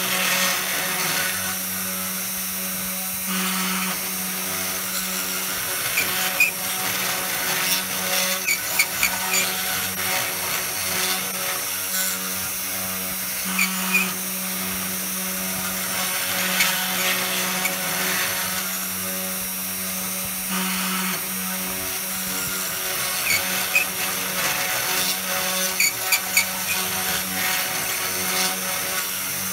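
Desktop CNC router's spindle running as its end mill cuts into a painted board: a steady hum with irregular louder surges and short clicks from the cutting.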